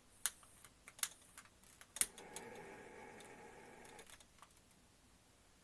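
Butane utility lighter being clicked: several sharp trigger clicks in the first two seconds, then a faint steady hiss of the lit gas flame for about two seconds while it lights a jar candle, ending with a click as the trigger is released.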